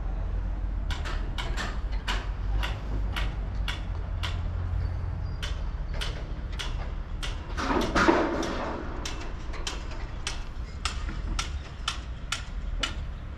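Footsteps on a paved path, about two to three a second, over a steady low wind rumble on the microphone. A brief louder noise swells about eight seconds in.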